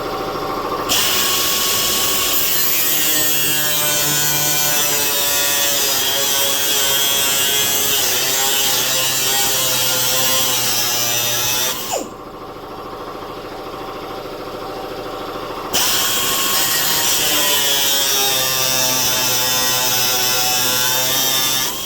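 Electric power tool rough-cutting sheet metal: the motor's pitch wavers as it works through the cut, over a loud, harsh cutting hiss. About halfway through, the cutting noise stops for a few seconds while the motor keeps running, then the cut resumes.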